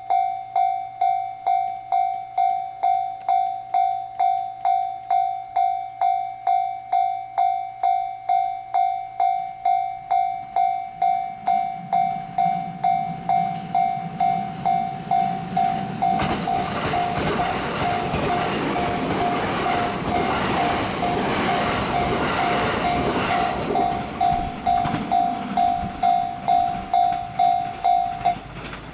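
Japanese level crossing warning bell ringing steadily, about one and a half strikes a second, while a train approaches about twelve seconds in and passes over the crossing from about sixteen seconds. The bell stops just before the end as the crossing clears.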